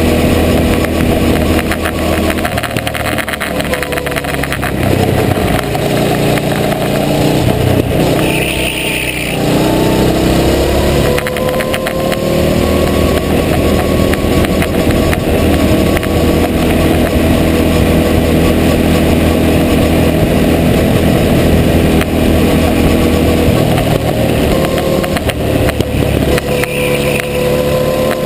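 Go-kart engine running hard beneath the driver through a lap. Its pitch sags about eight seconds in as the kart slows, then climbs steadily as it accelerates again, with a second dip and rise near the end. A brief high squeal is heard around the first dip.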